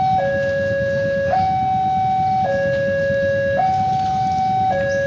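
Two-tone hi-lo electronic warning siren, switching evenly between a lower and a higher tone, each held a little over a second, over a low steady rumble.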